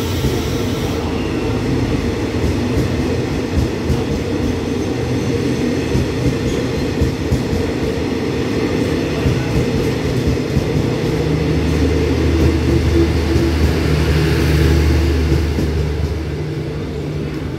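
Passenger coaches of a departing express train rolling past the platform, wheels rumbling along the rails. A steady low hum comes in a little past the middle and drops away near the end.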